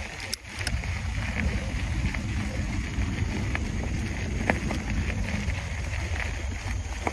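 Mountain bike being ridden along a dirt trail: steady low wind rumble on the microphone and tyre noise, with a few sharp clicks and rattles from the bike over bumps.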